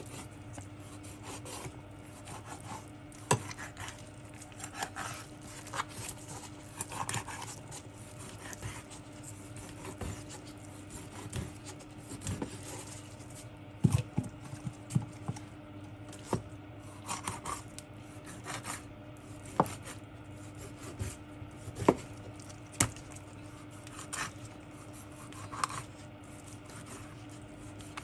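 Chef's knife scoring a whole raw captain fish on a bamboo cutting board: irregular scraping and slicing through the scaly skin, with sharp taps of the blade against the wood.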